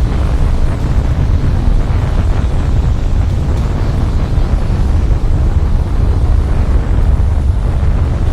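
Tornado sound effect: loud, steady wind noise, deep and heavy at the low end, with no breaks or distinct events.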